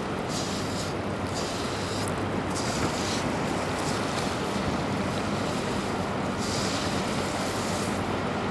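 Steady outdoor rushing noise, with a faint low hum underneath. The hiss in the upper range swells and eases.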